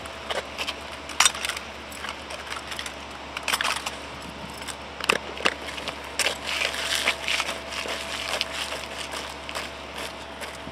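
Scattered sharp clacks of drill rifles being handled, with shoes scuffing and stepping on asphalt as a drill platoon gets up and walks off.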